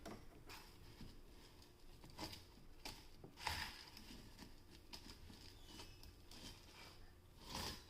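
Faint, scattered taps and rustles of plastic toy kitchen pieces being handled, as a small child stirs in a toy pot.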